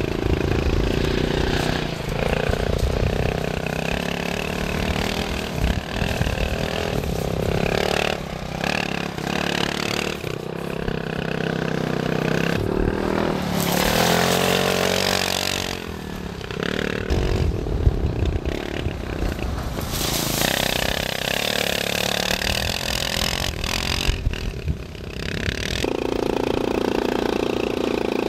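250cc GIO GT2502s dune buggy engine revving up and down as it is driven over rough ground, with two stretches of rushing noise. Near the end the sound changes abruptly to a steady engine note.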